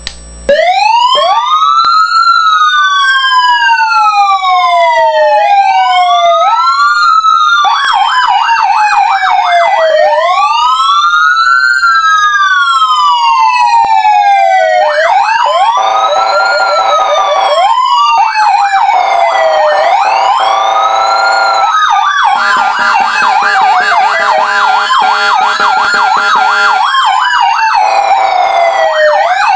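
Electronic emergency-vehicle sirens, the Star Signal and Federal Signal PA300, sounding through siren speakers. A slow wail rises and falls every few seconds, and about eight seconds in a second siren joins it with a fast yelp-like warble, so the two sound together.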